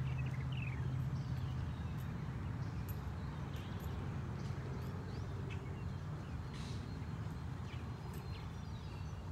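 A steady low rumble throughout, under the faint footfalls of a horse walking on soft arena sand, with a few short bird chirps.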